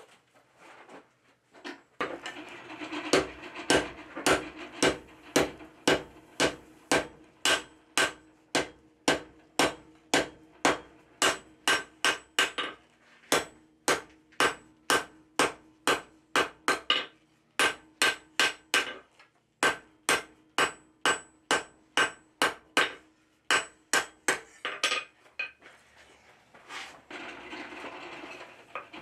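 Hand hammer striking a red-hot steel bar on an anvil, forging it down: a long run of blows about two a second, with short breaks. Near the end the blows stop, leaving a steady hum.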